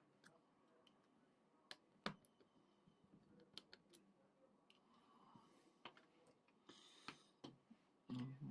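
Faint, scattered sharp clicks of a precision screwdriver and small metal parts inside an iPhone 6, as the screws of the bracket over the battery and charge dock connectors are taken out.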